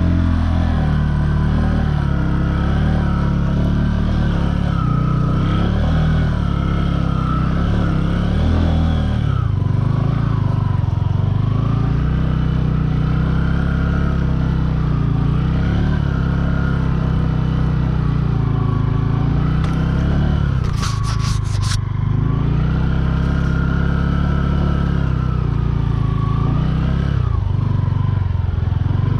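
Bajaj Boxer 150's single-cylinder four-stroke engine running under way, its revs rising and falling. A short burst of scraping clatter comes about two-thirds of the way through.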